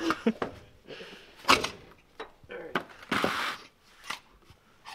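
Knocks and clicks of a removed front CV axle shaft being handled over an oil drain pan, with one sharp knock about a second and a half in and a short scraping hiss a little after three seconds.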